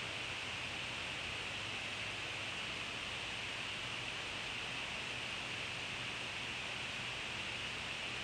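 Steady, even hiss of background noise with a faint low hum underneath and no distinct sounds.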